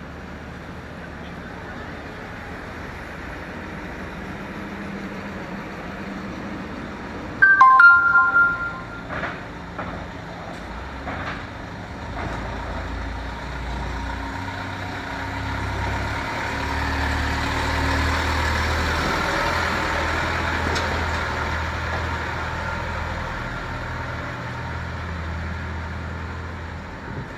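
Truck engine running as a low rumble that grows louder through the middle of the clip. There is a brief loud pitched blast about a quarter of the way in.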